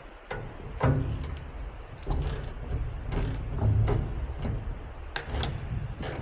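Cordless electric impact gun run in several short bursts, driving in bolts, with sharp metallic clicks between bursts.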